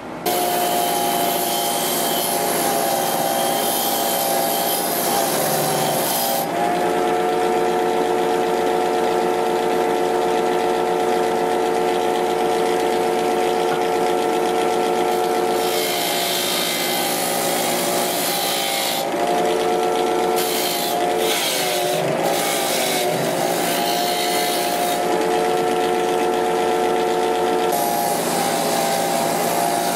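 Bench grinder motor running with a steady hum while rusty steel bayonet parts are pressed against the spinning wheel, giving a harsh grinding noise that comes and goes as the metal touches. About two-thirds of the way through, the motor pitch sags briefly under the load.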